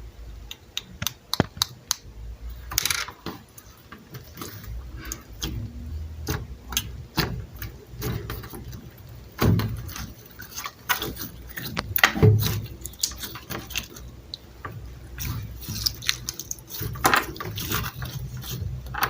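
Slime being squished and pressed by hand: an irregular run of sticky clicks and small pops, with a couple of louder squelches about nine and twelve seconds in.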